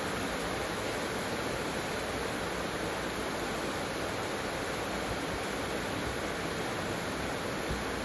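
Heavy rain falling steadily, an even, unbroken hiss of a tropical downpour.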